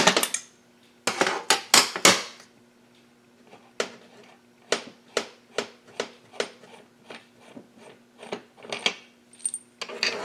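Metal clinks and knocks of a wrench and parts being handled against a Husqvarna chainsaw crankcase on a workbench. There is a loud clatter at the start and a quick cluster of knocks a second or two in, then a string of single sharp clicks and another clatter near the end, over a faint steady hum.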